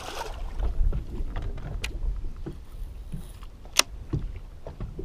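Ambience on the deck of a bass boat on a lake: a steady low rumble with scattered clicks and knocks. The sharpest click comes nearly four seconds in.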